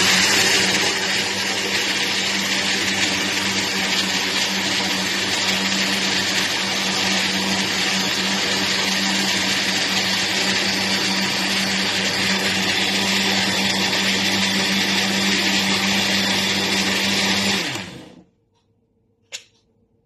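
Countertop blender blending a green vegetable mixture, running steadily for about seventeen seconds, then winding down and stopping. A single sharp click follows shortly after.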